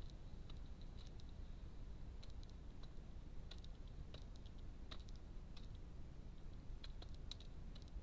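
Wood pigeon pecking seed from a plastic feeder tray: faint, irregular sharp clicks of its beak striking seed and tray, over a low steady background rumble.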